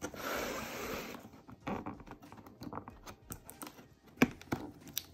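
Handling of a cardboard box: a hand sliding and rubbing over the box for about a second, then fingers picking at the box's flap, giving a string of small clicks and ticks, the loudest about four seconds in.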